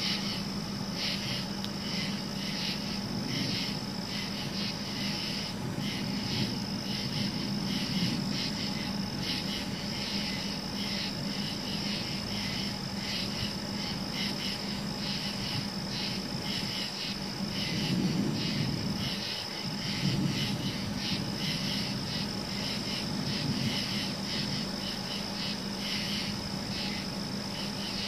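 Night insect chorus of crickets and katydids, a dense rhythmic chirring that goes on throughout. A low rumble swells briefly about eighteen and twenty seconds in.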